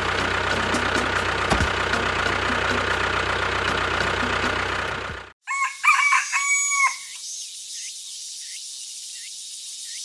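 A small motor running with a steady hum for about five seconds, cutting off abruptly; then a rooster crows once, briefly, followed by faint short chirps repeating about twice a second.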